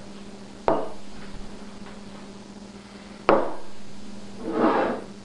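Two hard knocks about two and a half seconds apart, each ringing out for a second or so, then a breathy sound that swells and fades near the end.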